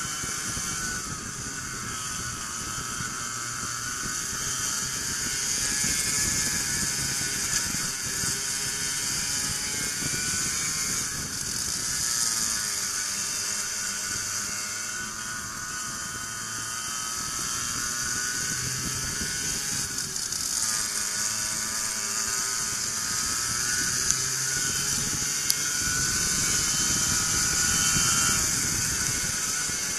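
Racing go-kart engines running at high revs, the pitch dropping several times as the karts slow into corners and climbing again on the straights, with wind hiss over the camera microphone.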